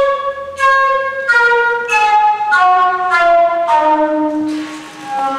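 Set of wooden organ pipes playing a descending scale, one pipe sounding after another, each note about half a second. The pitch steps lower as air is let into ever longer pipes.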